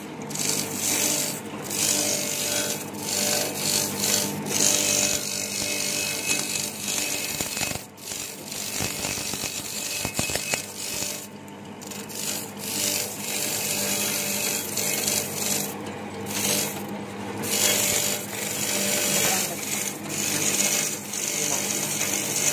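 Satay-skewer sharpening machine running: a steady motor hum under the rasping hiss of skewers being ground to points, swelling and dipping with a few brief lulls.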